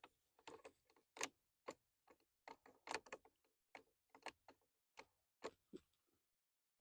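Faint, irregular small clicks and taps of a screwdriver and metal parts while the screws holding the carburetor float bowl of an old two-stroke outboard are being undone.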